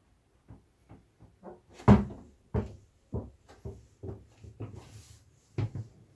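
Footsteps and knocks inside a catamaran's hull cabin: an irregular run of short thumps, about two a second, the loudest about two seconds in.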